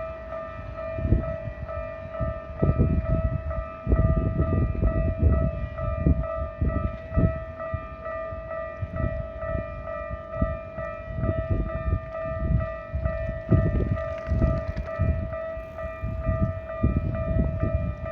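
Japanese electronic level-crossing warning bell ringing continuously as a steady, repeating tone: the crossing is closed for an approaching or passing train. Irregular low rumbling swells and fades beneath it.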